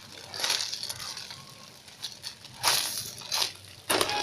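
Rustling and crinkling handling noise in a few short bursts, as a squishy toy is moved and handled by hand.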